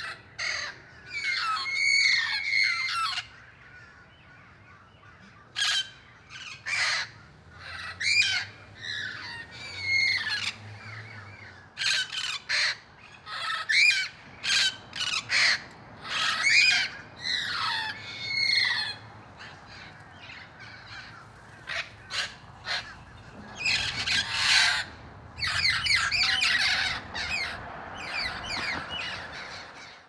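Amazon parrots giving harsh, loud squawking calls in repeated bouts of a second to several seconds, with short quiet gaps between bouts.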